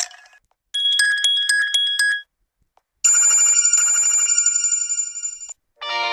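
Built-in notification tones of a Vsmart Live smartphone played one after another: a fast trilling electronic ring for about a second and a half, then after a short gap a longer ring with a high, steady tone, each cutting off cleanly. The next, more musical tone begins near the end.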